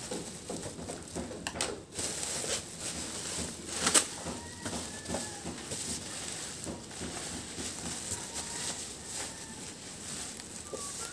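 Plastic bubble-wrap mailer rustling and crinkling as it is cut open and pulled off a cardboard box, with irregular sharp clicks and snips, the loudest about four seconds in.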